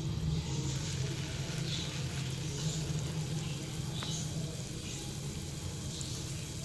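Lentil-batter fritters of ground moong and urad (mash) dal sizzling as they deep-fry in hot oil in a pan, a steady hiss with soft crackles. There is a single click about four seconds in.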